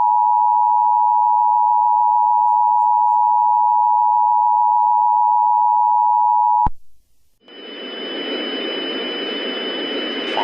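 Emergency Alert System attention signal: the steady two-tone 853 and 960 Hz alarm, held loud and cutting off abruptly about seven seconds in. After a brief silence, a steady hissing noise with a high whine sets in.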